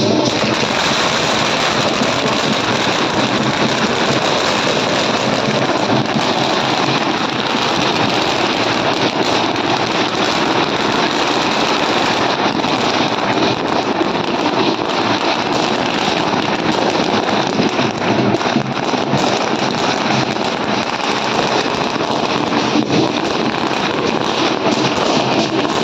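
A long string of firecrackers going off in a dense, continuous rattle of rapid bangs, together with other fireworks.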